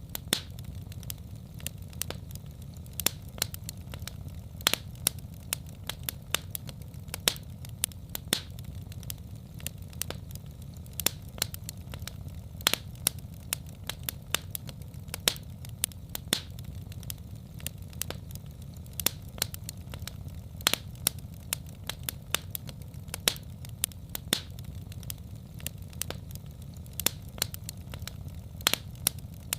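Wood fire crackling in a fireplace: frequent sharp, irregular pops and snaps over a steady low rumble of the flames.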